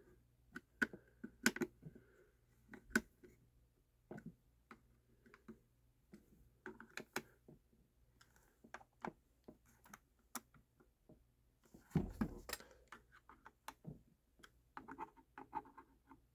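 Scattered small clicks and taps of a screwdriver or Allen key and hands handling the Umarex TR68 revolver while its screws are checked for tightness, with one louder knock about twelve seconds in.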